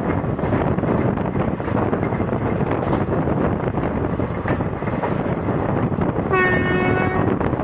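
Steady running noise and wind rush of a moving passenger train, heard from on board. Near the end a train horn sounds once, a single steady note held for about a second.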